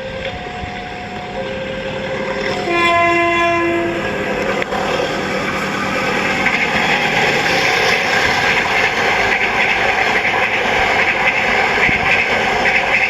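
CC 201 diesel-electric locomotive sounding its air horn: fainter steady horn tones at first, then one loud blast about a second long, near three seconds in. After that the train passes with a growing, steady rumble of wheels on the rails.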